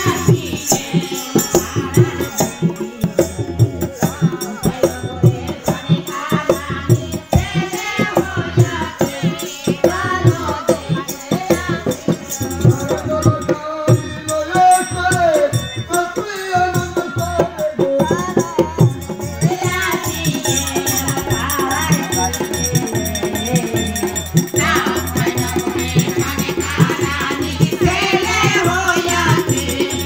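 Music with a singing voice and a fast percussion beat, played loud through an Ahuja PA amplifier set-up (UBA 500 amplifier and SSB 120) as a sound check.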